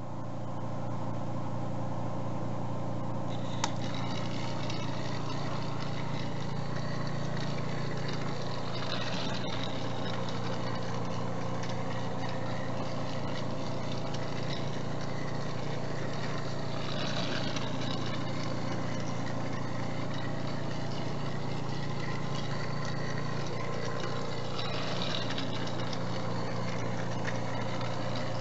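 Battery-powered Trackmaster Thomas toy engine running on plastic track, its motor and gears whirring steadily. The sound swells briefly about every eight seconds.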